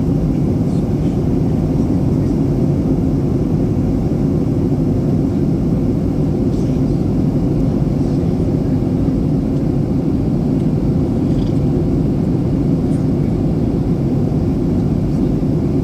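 Steady engine and airflow noise inside the cabin of a Boeing 737-800 with CFM56-7B turbofans during descent, a constant low rumble.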